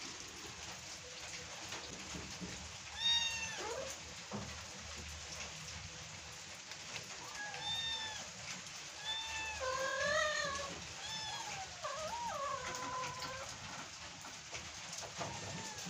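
Domestic cats meowing: one loud meow about three seconds in, then a run of several meows from about eight to thirteen seconds in.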